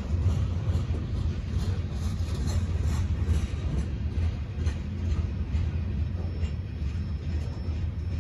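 Loaded coal hopper cars of a freight train rolling past on the rails: a steady low rumble with faint wheel clicks.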